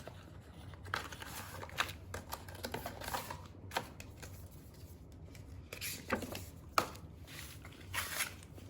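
Light clicks and rustling of small objects being handled, a few sharper clicks among them, one standing out about seven seconds in.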